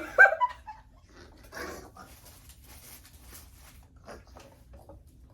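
A person's short, high-pitched squeal right at the start, then faint breathy wheezing.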